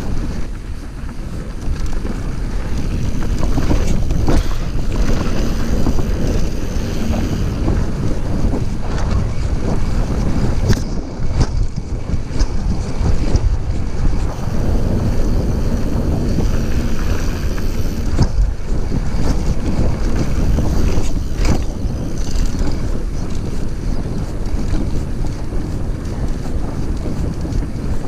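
Wind buffeting the microphone of a camera on a moving mountain bike, a steady loud rumble. Scattered knocks and rattles come through as the Orbea Occam full-suspension bike rolls over rough trail.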